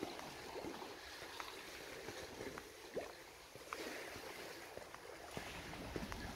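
Small sea waves lapping and splashing against the rocks and seawall, with many small gurgles and splashes. Wind rumbles on the microphone near the end.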